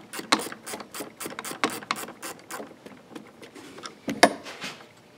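Ratcheting 10 mm wrench clicking in irregular runs as it turns the nut on a car battery's positive terminal clamp. One louder click comes about four seconds in.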